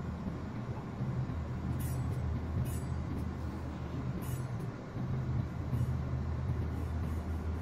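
Steady low mechanical hum, with a few faint light clicks about two, two and a half and four seconds in.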